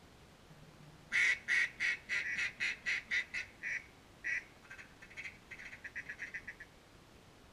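Duck call blown by a hunter: a loud series of quacks that fall off in loudness, then a quick run of short chattering notes about two thirds of the way through.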